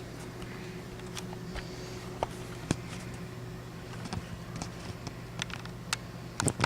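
Steady low hum with scattered faint clicks and ticks, a small cluster of them near the end.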